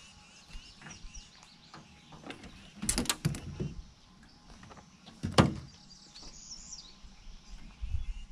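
Knocks and clatter of gear being handled in a small fishing boat: a quick cluster of sharp knocks about three seconds in and one louder knock about two seconds later. Small birds chirp faintly around them.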